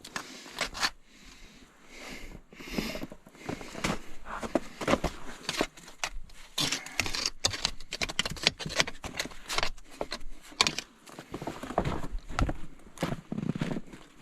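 Irregular scraping, clicking and knocking as packed mud is cleared out of a machine's hydraulic drive, done so the mud cannot freeze and jam the hydraulic motors.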